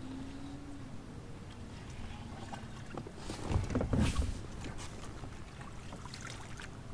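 A hooked bass splashing and thrashing at the water's surface beside a kayak, loudest for about a second around the middle, over a steady low background of wind and water.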